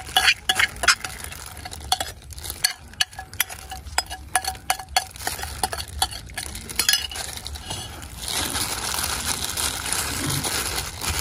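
A metal utensil clinking and scraping against a ceramic bowl and a steel tray as a wet chili-garlic marinade is scooped out onto pork belly, in many quick irregular clicks. From about eight seconds in, a steady rustling hiss of plastic-gloved hands rubbing the marinade into the meat.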